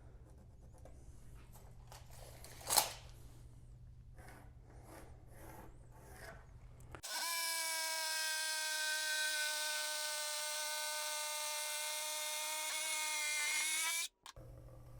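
An electric power tool's motor running at a steady high pitch, starting abruptly about halfway through and cutting off suddenly near the end. Before it, faint room noise with a single sharp knock a little under three seconds in.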